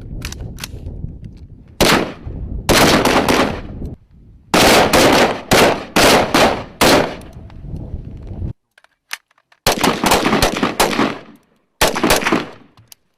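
Automatic gunfire in repeated bursts, each a rapid run of shots lasting up to about two seconds, with short pauses between. A few separate single shots come just before the first burst.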